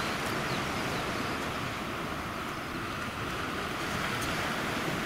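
Distant surf breaking on a sandy beach: a steady, even rushing hiss.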